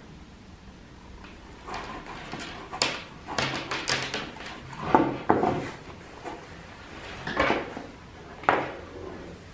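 Hands gathering and twisting bundles of remote-start and bypass harness wires on a plywood bench: irregular rustling and scraping with several sharp knocks, the loudest about halfway through and two more near the end.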